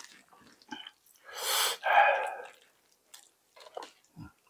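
Eating sounds: soft chewing and small wet mouth clicks, with one loud breathy rush lasting about a second, starting about a second in.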